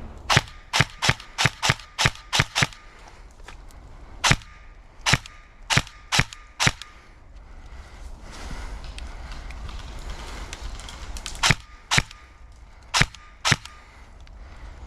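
A string of sharp airsoft shots: a fast run of about eight in the first few seconds, five more a little later, and four spaced out near the end.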